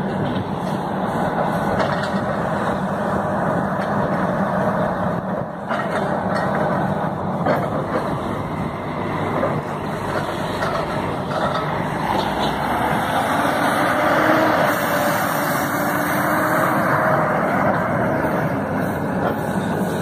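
Heavy dump trucks driving, their diesel engines running with a steady drone.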